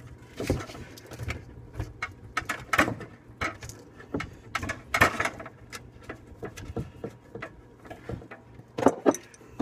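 Irregular small clicks, taps and scrapes of a brass compression nut and fitting being handled and threaded together by hand on 1/4-inch ice-maker supply tubing, with a few sharper taps among them.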